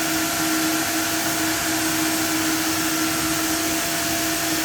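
Shop vac running steadily together with a Carts & Millie Prepmate 2 brushless random orbital sander set to speed 4; the vacuum's steady drone with a constant hum covers the quieter sander.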